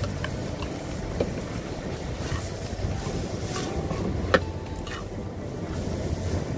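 Wind rumbling on the microphone, with a few clinks and scrapes of a metal spatula against a steel wok as vegetables are stir-fried; one sharp metallic clink about four seconds in.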